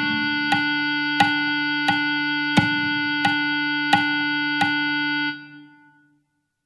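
Clarinet holding the final tied note of the piece under a fermata, over a lower sustained tone, with a metronome click about every two-thirds of a second. The notes stop a little past five seconds in and die away.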